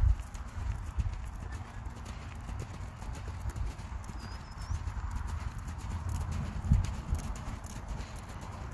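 Hoofbeats of a Lipizzaner horse trotting on a sand arena under a rider: a running series of dull thuds, with one louder thud about seven seconds in.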